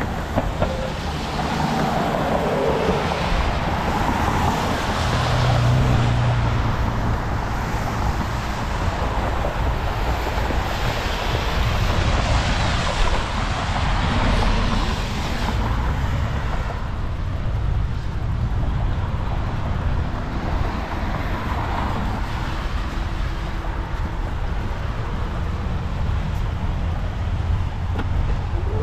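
Road traffic going by, with a steady low rumble of wind on a helmet-mounted camera's microphone.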